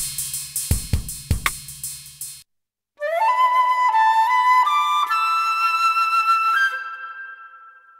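A drum-kit beat loop with kick, snare and hi-hat plays and stops about two and a half seconds in. After a short gap a flute loop plays a phrase of notes climbing step by step, the last one held and fading out.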